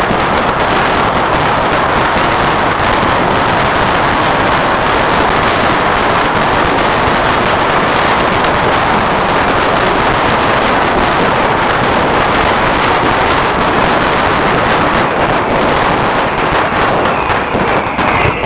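Beehive fireworks: masses of bottle rockets and firecrackers going off at once, a loud, continuous crackle with no gaps.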